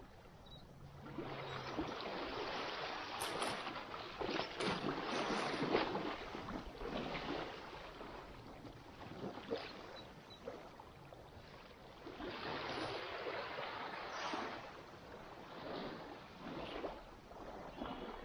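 Water lapping and splashing, swelling and fading in surges a few seconds long.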